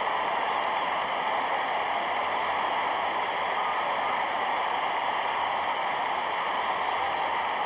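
Steady hiss and static with no distinct events, even throughout.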